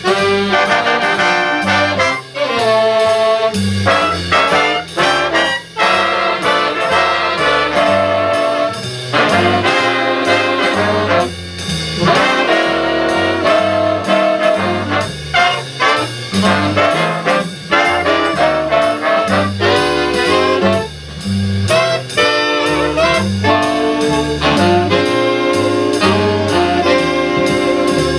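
Big jazz band playing a swing tune live: the brass and saxophone sections play chords over an upright bass and drum kit keeping a steady beat.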